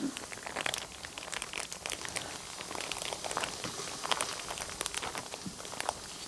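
Oiled vegetables sizzling on a hot cast-iron griddle plate: a steady hiss with irregular crackles and pops.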